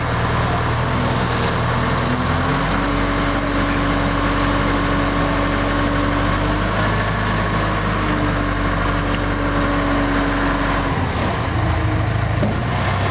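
A VSSL850 skid steer loader's engine running steadily. Its note shifts about two and a half seconds in and shifts back near the end.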